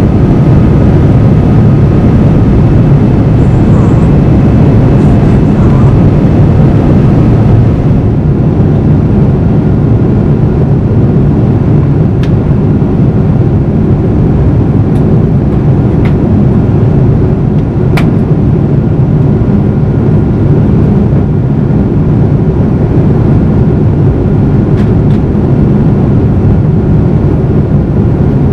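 Steady, deep cabin roar of a Boeing 787-9 in flight, its GE GEnx engines and the airflow heard from a window seat beside the wing. The level dips slightly about eight seconds in, and a few faint clicks sound later on.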